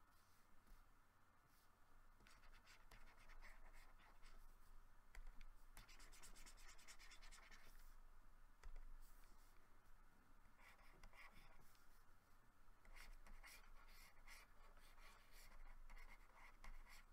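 Faint scratching of a stylus drawing strokes on a graphics tablet, in several runs of quick short strokes with brief pauses between them.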